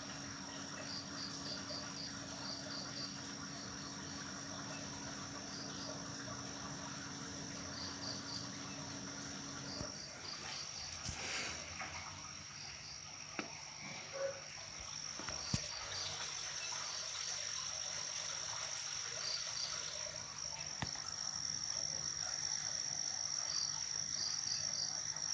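Night insects, crickets among them: a steady high shrill drone with short chirps in little groups of three to five, repeating every second or two. A low steady hum stops about ten seconds in, and there is a brief swish soon after and a single sharp click.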